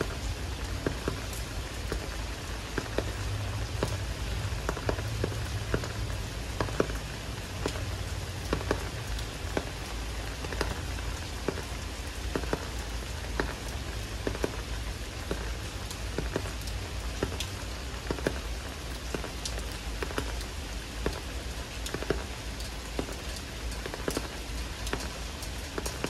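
Heavy rainy-season rain falling steadily: an even hiss of rain with many close drops landing as distinct sharp taps.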